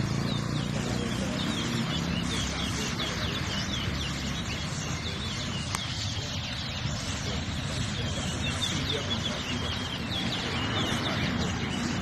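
Caged twa-twa (large-billed seed finch) singing in a song contest: a rapid run of short, high, falling chirps repeated again and again, over steady background noise.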